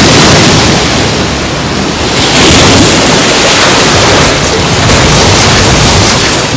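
Heavy surf and wind: loud waves breaking and rushing in a dense, steady wash that eases slightly about two seconds in and then swells again.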